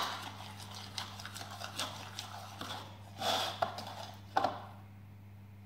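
A metal teaspoon stirring runny glue slime in a bowl: scattered scrapes and clicks of the spoon against the bowl, which stop about five seconds in. A faint steady hum runs underneath.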